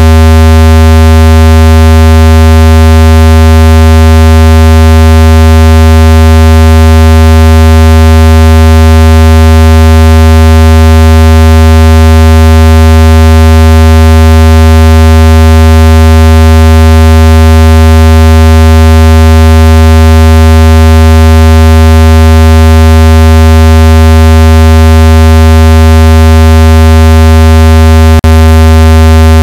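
Synthesized water-eject tone for phone speakers: a single very loud, steady low tone rich in overtones, meant to vibrate trapped water out of a speaker grille. It does not change, apart from one brief click near the end.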